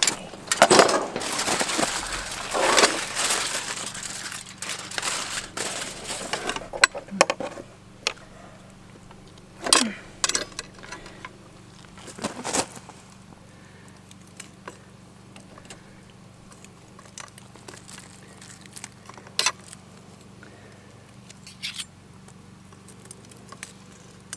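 Aluminium foil crinkling for several seconds as it is peeled off a dish. After that come a few scattered clicks and scrapes of a carving knife and fork against a plate as a roast is carved.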